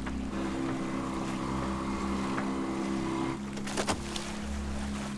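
Outboard motor running steadily, pushing the boat along. Its tone shifts slightly about three and a half seconds in, and a couple of sharp knocks follow just after.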